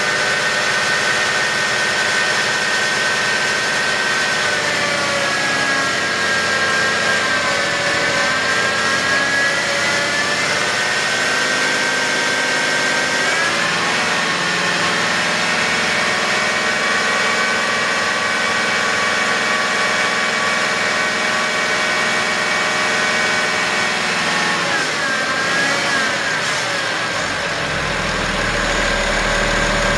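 2011 BMW X5 35d's straight-six diesel engine running, with a high whine from the belt drive that rises and falls in pitch with engine speed a few times; the sign of a bad idler pulley. A deeper hum joins in near the end.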